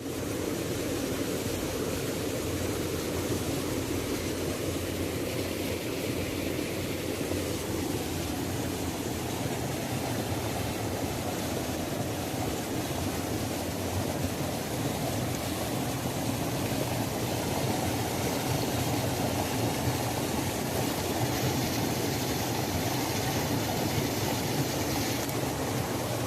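Waterfall: steady rushing and splashing water.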